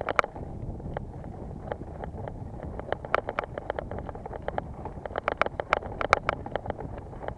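Mountain bike rattling over rough ground: irregular clicks and knocks several times a second over a steady low rumble of wind and tyres.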